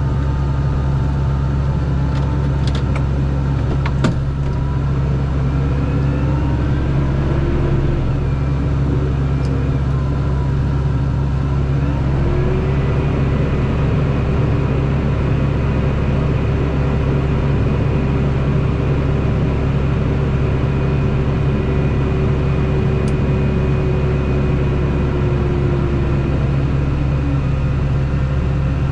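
A large engine running steadily with a low drone. A whine rises about twelve seconds in, holds, and fades away near the end. There is one short click about four seconds in.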